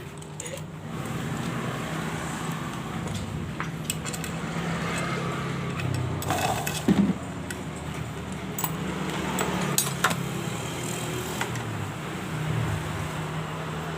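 Scattered metallic clinks and knocks of bolts and hand tools while a bearing is pressed into a motorcycle crankcase by tightening bolts, over a steady low hum.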